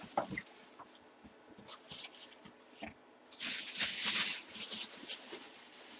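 Plastic bag around a full-size football helmet crinkling and rustling as it is handled: scattered light crackles at first, then a louder run of crinkling starting about three seconds in and lasting a couple of seconds.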